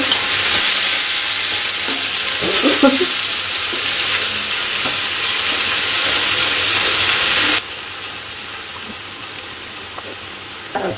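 Hot oil sizzling in a kadhai as grated radish and chopped onion, tomato and green chilli are tipped in. The sizzle is loud, then drops abruptly to a quieter hiss about two-thirds of the way through.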